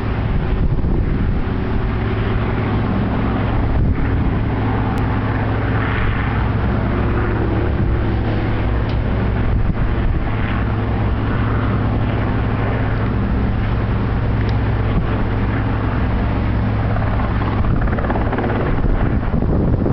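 Helicopter hovering while it places a section of a new antenna on a tall mast: a loud, steady, deep rotor-and-turbine drone that holds even throughout.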